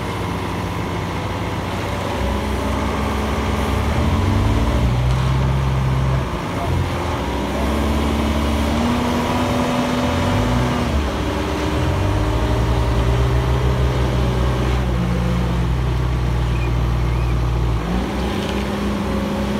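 Diesel engine of an Ajax Fiori Argo 2500 self-loading concrete mixer running under load as the machine moves, its revs rising and falling several times and dropping back near the end.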